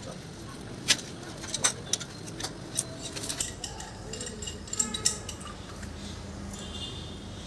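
Metal hand tools, a pipe wrench among them, clinking and knocking against a galvanized iron pipe fitting: a string of sharp irregular clinks in the first five seconds, then quieter.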